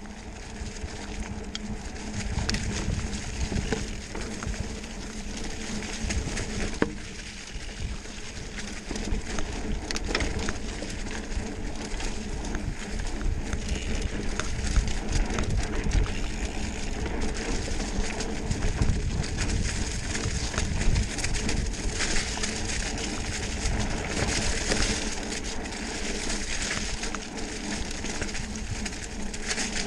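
Mountain bike riding over a dirt trail covered in dry fallen leaves: the tyres crackle through the leaves, the bike gives off many small knocks and rattles over the bumps, and wind rumbles on the microphone throughout.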